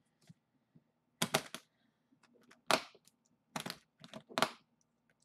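About five sharp clicks and knocks, a second or so apart, from the latch clips of a makeup train case being snapped open and shut.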